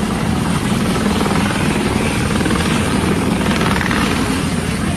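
Helicopter rotor and engine running loud and steady, with a fast, even chop.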